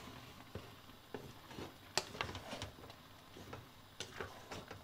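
Wooden spatula stirring chunks of apple in an aluminium pot: scattered light knocks and clicks as the spatula and apple pieces hit the pot, the sharpest about two seconds in.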